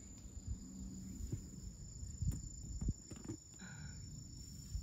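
Insects trilling steadily at a high pitch, with a few dull thuds of footsteps about two to three seconds in and a short chirp just after.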